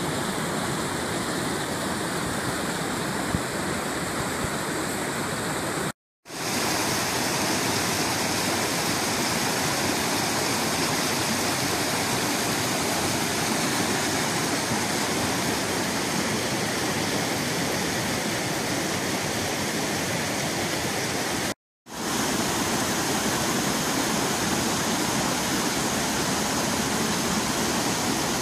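Fast woodland stream rushing and splashing over rocks in a steady white-water roar, cut by two brief silent gaps about six seconds in and again near twenty-two seconds.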